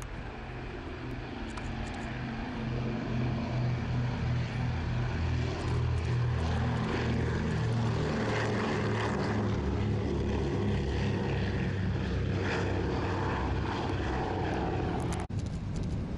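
A PBY-5 Canso's twin Pratt & Whitney R-1830 radial engines drone at take-off power with a throbbing propeller beat. The sound grows louder over the first few seconds and then holds steady, with a brief dropout about fifteen seconds in.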